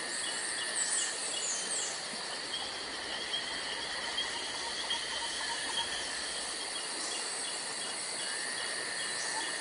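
Outdoor nature ambience: a steady chorus of chirping insects, with a few high bird calls about a second in.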